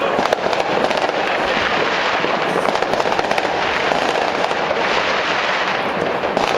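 Many fireworks and firecrackers going off at once in a dense, continuous crackle of pops and bangs at a steady level, with no single blast standing out.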